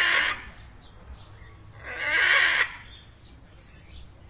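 Macaw squawking: the end of one squawk as it begins, then a second loud, harsh squawk about two seconds in, lasting under a second.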